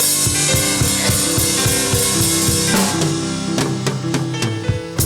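Praise music with a drum kit beating steadily under held low and middle notes, loud and full, thinning out near the end.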